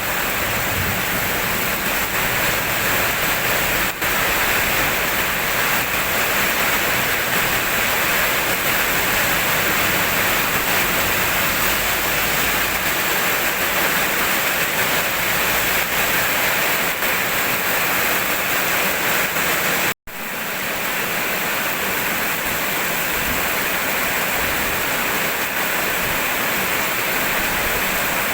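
Steady rainfall, an even rushing hiss of drops, that cuts out for an instant about twenty seconds in before resuming.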